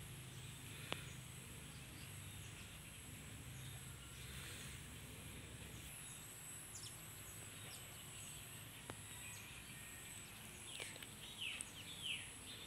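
Quiet outdoor ambience: insects trilling on a steady high pitch, with a few short falling bird chirps near the end and a single faint click about a second in.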